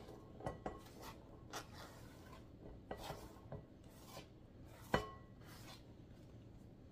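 Faint scraping and rubbing as chopped onion and green pepper are swept by hand off a plastic cutting board into a plastic bowl, with scattered light ticks and one sharper knock about five seconds in.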